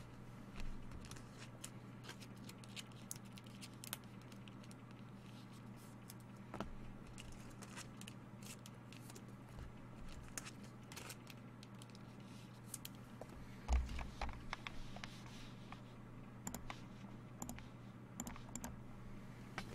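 Faint handling of trading cards and their packaging: small scratches, rubs and clicks of card stock, with a louder rustle about two-thirds of the way through, over a steady low hum.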